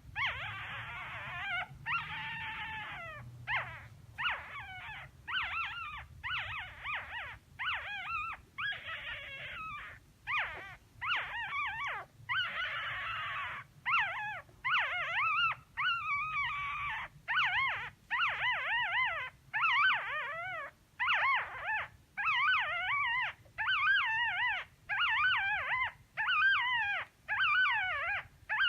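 Newborn Yorkshire terrier puppies crying in high, wavering squeals, one after another at about one a second, with several overlapping in the first few seconds. A faint low hum lies underneath.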